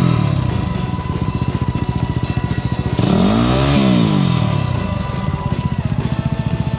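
Single-cylinder dirt bike engine running, revved up and back down about three seconds in, with its fast, even firing beat throughout.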